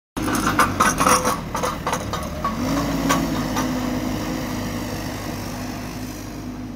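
Heavy equipment engine running, with a quick run of sharp metallic clanks and rattles over the first few seconds; the engine pitch rises a little partway through, then it runs steadily and slowly fades.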